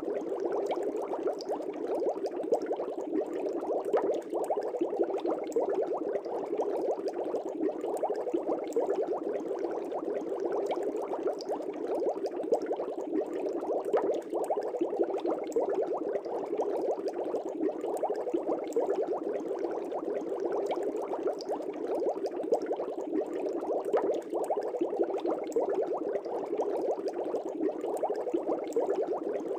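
Aquarium water bubbling steadily: a dense, continuous stream of air bubbles with no pauses or changes.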